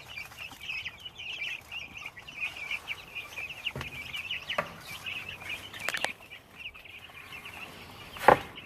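A flock of young chicks peeping without pause, many small high calls overlapping: the contented sound of warm, freshly fed chicks. A few sharp knocks cut in, the loudest near the end.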